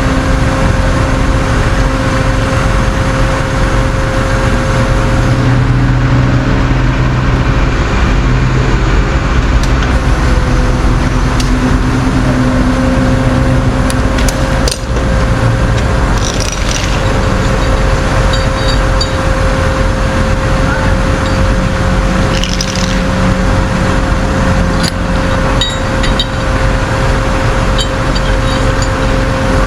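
Tow truck engine running steadily, with a constant whine over a shifting lower hum and a few scattered knocks.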